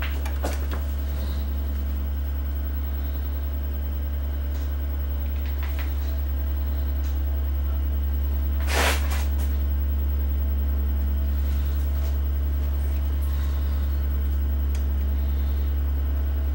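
Steady low electrical hum, with a few faint clicks and one brief, louder clack about nine seconds in.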